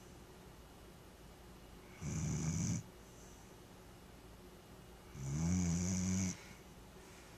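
Vizsla dog snoring in its sleep: two snores about three seconds apart, the second one longer.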